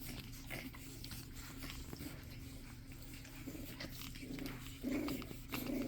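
Pug puppies playing and mouthing, with light clicks and rustles and a few short soft grunts in the second half.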